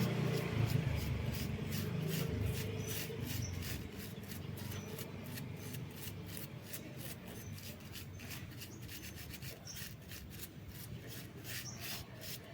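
Rhythmic scrubbing on a motorcycle battery's terminals, about four strokes a second, cleaning off acid corrosion with vinegar. A low vehicle rumble fades out over the first few seconds.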